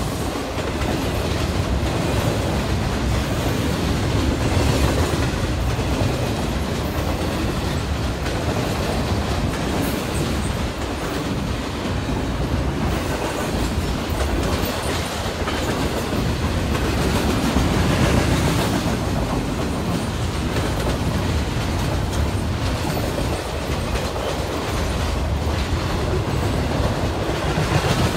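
Intermodal freight train of containers and trailers rolling past close by, a loud, steady noise of steel wheels on rail.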